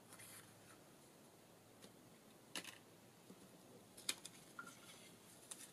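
Faint handling of paper cards on a table, with a few light clicks and taps: about two and a half, four and five and a half seconds in.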